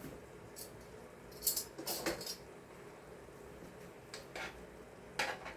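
About five brief, light clicks and rustles of kitchen handling, spread through an otherwise quiet stretch.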